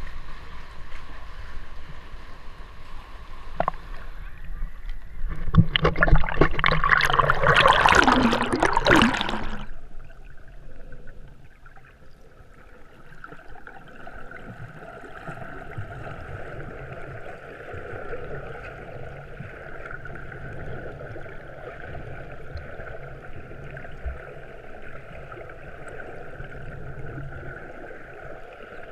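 Seawater sloshing around a kayak in a sea cave, rising to a loud rush of splashing water from about six to nine seconds in. From about ten seconds in the sound turns to a quieter, steady, muffled underwater wash as the camera is held below the surface.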